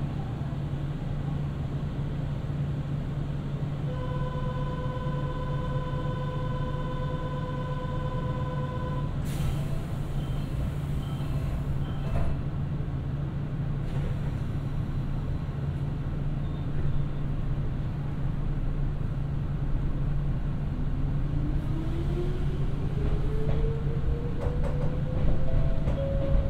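A Nankai 2200-series electric train standing at a station with its equipment humming steadily. A steady buzzer tone sounds for about five seconds, then comes a short burst of air hiss. About twenty seconds in, the traction motors start a whine that rises in pitch as the train pulls away.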